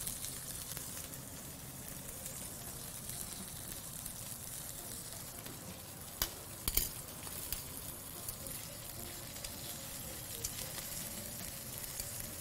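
Lamb loin steaks sizzling in oil on a hot flat-top griddle, a steady frying hiss. A few sharp clicks sound a little past the middle.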